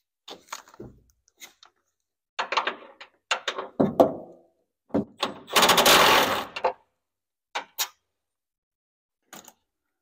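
Clicks, knocks and metal clatter as a BMW E46 coupe door is unfastened and lifted off its hinges, with a louder, harsher noise lasting over a second about halfway through.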